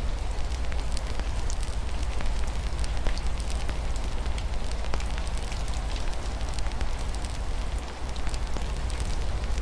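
Wood fire crackling with frequent small sharp pops, over a steady hiss of rain falling against a window and a low rumble underneath.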